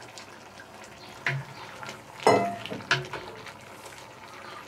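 Wooden spoon stirring chopped peppers and spring onions in a cast-iron Dutch oven over charcoal, the food sizzling, with a few knocks and scrapes of spoon and metal bowl against the pot, the loudest a little over two seconds in.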